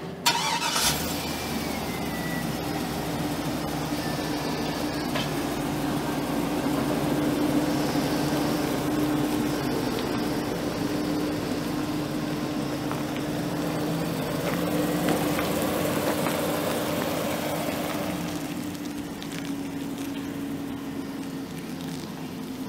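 2003 Chevrolet Silverado 2500HD's 6.0-litre gas V8 starting just after the opening moment, then running steadily at idle with slight swells in loudness.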